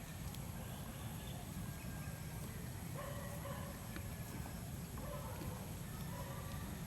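Faint scattered clicks of a screwdriver or Allen wrench working small bolts out of a motorcycle's plastic body panel, over a steady low rumble.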